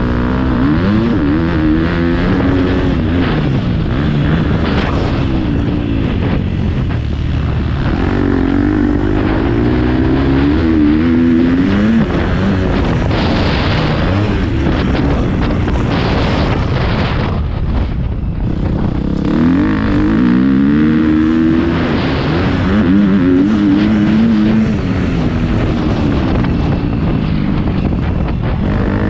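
Motocross dirt bike engine being ridden hard, its pitch climbing and dropping again and again as the throttle is worked and gears change.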